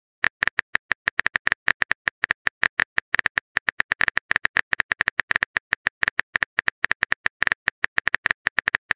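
Simulated phone-keyboard typing clicks, a short sharp tap sound repeated rapidly, several times a second, as a text message is typed out.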